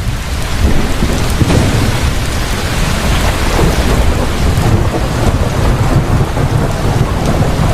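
Heavy rain pouring steadily, with a deep rolling rumble of thunder underneath.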